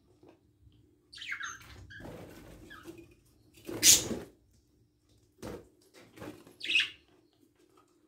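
Pet budgerigar sounds: short high chirps about a second in and again near seven seconds, a loud scratchy rustle about four seconds in, and a few soft knocks between, over a faint steady hum.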